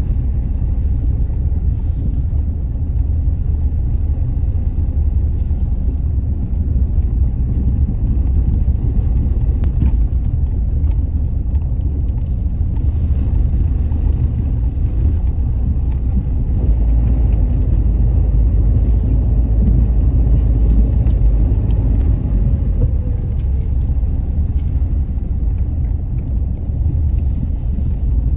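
A loud, steady low rumble with a few faint clicks.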